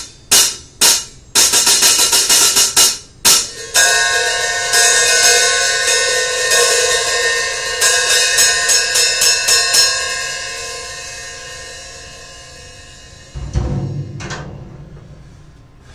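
Newly fitted hi-hat cymbals struck with drumsticks: first a run of short, sharp strokes that cut off quickly, then from about four seconds in the cymbals ring out under repeated strikes and fade away over several seconds. A low thud comes near the end.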